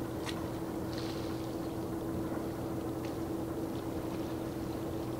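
A large vehicle carrier's engines and machinery giving a steady, low drone with a constant hum, carried across the harbour water as the ship gets under way.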